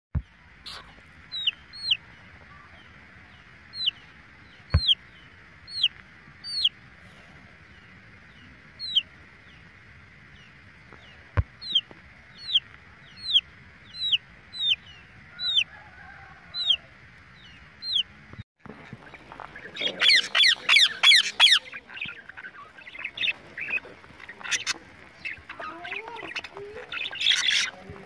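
Chicken chick peeping: repeated short, high, falling peeps, some in pairs, over a steady high background hum. About two-thirds through, this gives way to caged budgerigars and parakeets chattering, with many chirps overlapping.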